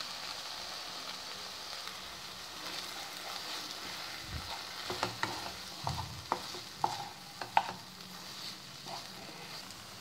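Spatula stirring masala paste into mashed roasted brinjal in hot oil in a non-stick pan. A faint steady sizzle runs throughout, with scattered scrapes and taps of the spatula against the pan, most of them in the middle stretch.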